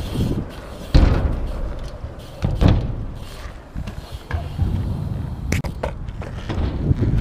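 BMX bike riding on skatepark ramps: tyres rumbling over the concrete, with heavy thuds of the wheels landing, the loudest about a second in and another near two and a half seconds, and a few sharp clicks and rattles later.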